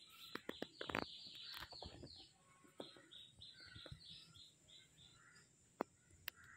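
A small animal chirping repeatedly, a quick run of short, high chirps about three a second that fades out after about five seconds, with scattered faint clicks and two sharp ticks near the end.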